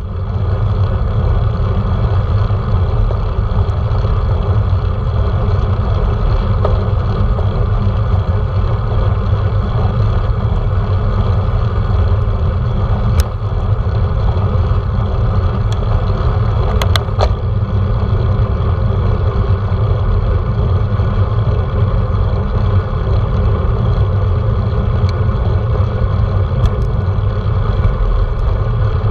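Wind buffeting the microphone of a handlebar-mounted GoPro on a moving road bike: a loud, steady low rumble with rushing noise above it, broken by a few sharp clicks about halfway through.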